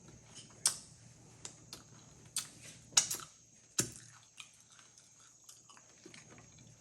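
Close-up chewing and crunching of tortilla chips: a run of sharp, crackling crunches at irregular intervals, the loudest about three seconds in.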